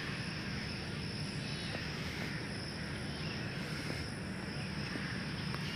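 Steady outdoor field ambience: a low rumble with a thin, steady high drone over it and no clear events.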